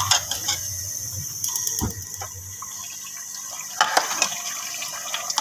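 Steel ladle stirring turnip chunks in watery gravy inside an aluminium pressure cooker: liquid sloshing, with sharp clinks of the ladle against the pot near the start, around two seconds in and around four seconds in.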